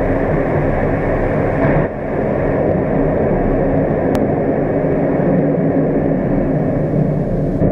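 Blue Origin New Shepard's BE-3 rocket engine running at liftoff, heard through the crew capsule's walls as a loud, steady, low noise, with a brief dip about two seconds in.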